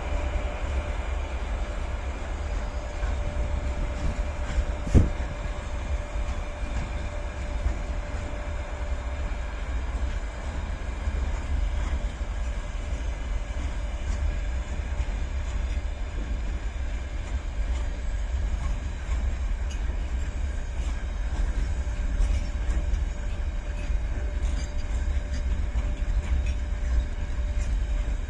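Freight train hauled by a 3ES5K electric locomotive moving slowly: a steady rumble of the train rolling on the rails under a faint steady hum, with one sharp clank about five seconds in.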